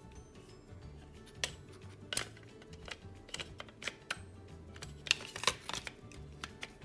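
Sharp, irregular plastic and metal clicks and taps from a Sony cassette deck's door mechanism being handled and fitted, with a quick cluster of clicks about five seconds in, over quiet background music.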